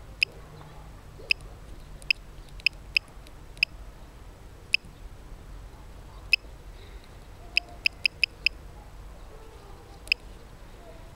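A small bird's short, sharp, high pips, repeated about fourteen times at uneven spacing, with a quick run of four or five near the middle, over a faint low background rumble.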